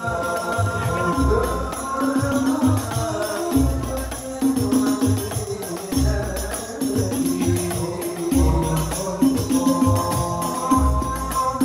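Group of men singing a devotional song over hand-played rebana frame drums, the deep drum strokes beating in a steady repeating rhythm with sharp slaps on top.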